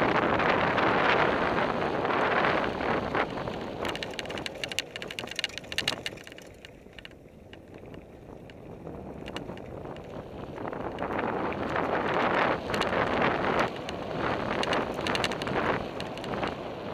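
Wind rushing over the microphone and knobby tyres rolling on dirt singletrack as a Fuji Thrill full-suspension mountain bike descends fast, with the bike clattering and clicking over bumps. The noise eases off about a third of the way in as the bike slows, then builds again as it picks up speed.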